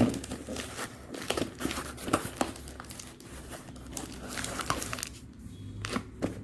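Packaging on a smartphone box crinkling and tearing as it is opened, a dense crackle that thins out about five seconds in, followed by a couple of sharp clicks near the end.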